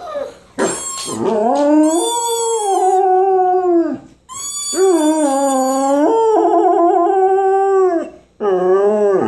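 Samoyed howling: three long drawn-out howls with short breaks between, the pitch bending up and down through each.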